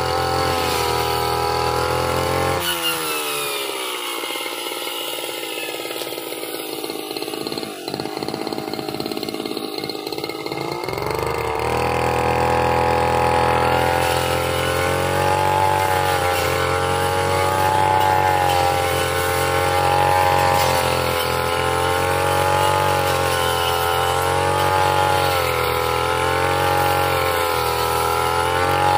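Backpack brush cutter with a circular blade, its petrol engine running at high revs. About two and a half seconds in it drops to idle, then revs back up around eleven seconds in and runs at full throttle, the pitch dipping and rising as the blade cuts through grass and saplings.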